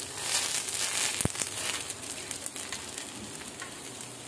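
Pumpkin-flower and mushroom fritters sizzling and crackling as they shallow-fry on a flat griddle, with one sharp click a little over a second in.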